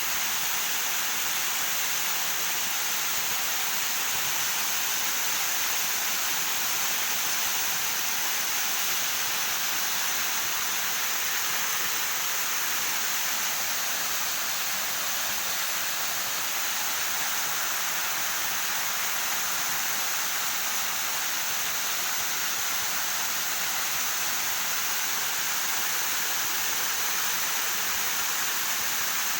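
Waterfall: a steady rush of falling water, even and unbroken, with most of the sound high and hissing.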